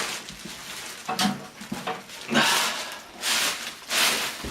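Cardboard, styrofoam and plastic packaging being handled around a large PC case: several short rustling scrapes, with a dull knock at the very end.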